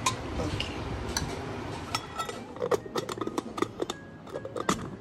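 Stainless-steel kitchenware clattering: a ladle stirring and knocking in a steel pot, then, from about two seconds in, a quick run of sharp metal clicks and taps, some ringing briefly, as the lid of a steel container is handled.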